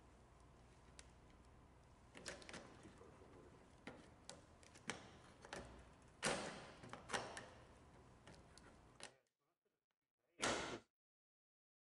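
Clicks and knocks of two-bolt cycling-shoe cleats against and into the clipless pedals of a BowFlex exercise bike as the shoes engage, about a dozen irregular clicks, loudest around six and seven seconds in. One more short knock comes shortly after ten seconds.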